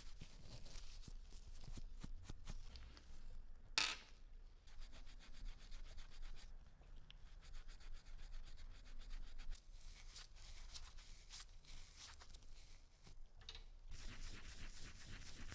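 Steel wool rubbing over a small threaded brass fitting held in gloved fingers, polishing the threads: a fine, scratchy rubbing with one brief louder burst about four seconds in.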